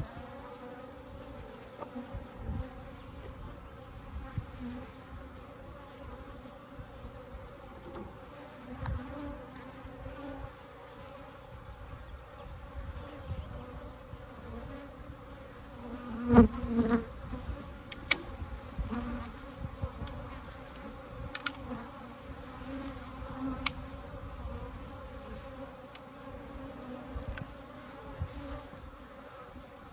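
Steady buzzing hum of a large colony of Africanized hybrid honey bees swarming around their opened hive. A few knocks and clatters from handling the hive, the loudest about halfway through.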